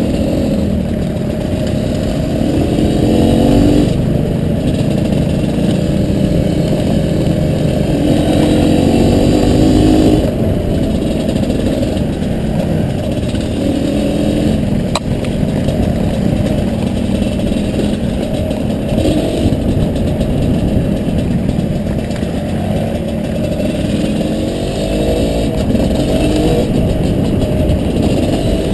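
Honda CRM250R dirt bike's single-cylinder two-stroke engine running under way, muffled. It rises in pitch several times as it accelerates, near the start, around ten seconds in and again near the end.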